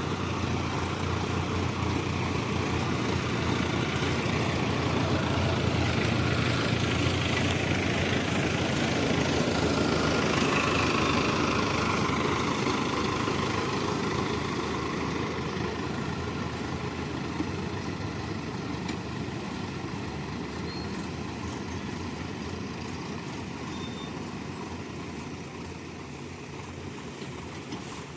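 Diesel engine of heavy earthmoving machinery running steadily; it grows louder for the first ten seconds or so, then slowly fades away.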